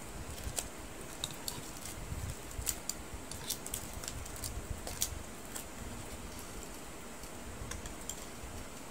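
Cooked crabs being cracked and pulled apart by hand: scattered small clicks and cracks of shell over a steady low background noise.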